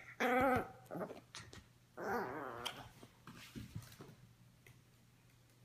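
Teacup Yorkshire terrier with a ball in its mouth giving a few short whines and growls in the first four seconds, pestering its owner to throw the ball.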